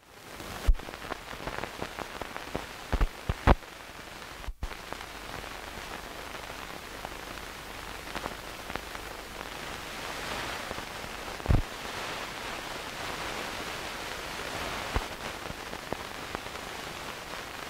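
Steady hiss and crackle of an old film print's soundtrack, with scattered clicks and pops; a few louder pops come in the first four seconds and another about halfway through.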